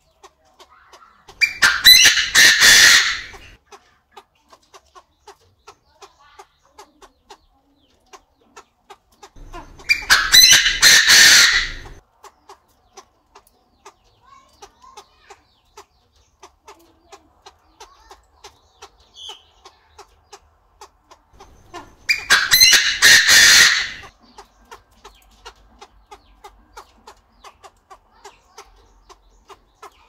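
Chinese francolin calling three times, each loud, harsh call lasting about two seconds, with long gaps between them.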